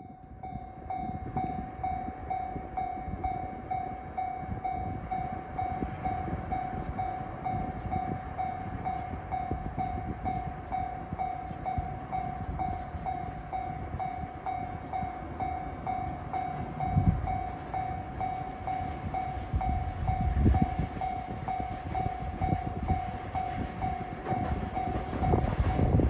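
Japanese level crossing alarm ringing: one electronic bell tone repeated in even, rapid dings, the warning that a train is approaching with the barriers down. Near the end a low rumble grows louder as a DD200 diesel locomotive approaches.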